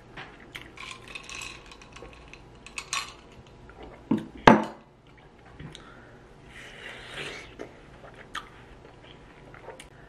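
Dishes handled on a table: scattered light clinks and rustles, with one loud knock about four and a half seconds in.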